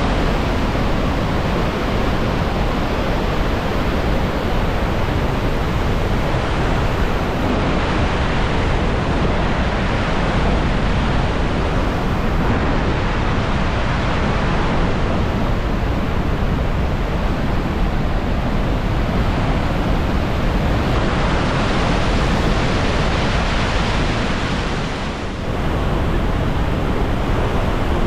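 Iguazu Falls waterfall cascades heard up close: a loud, steady rush of falling water, dipping briefly about three seconds before the end.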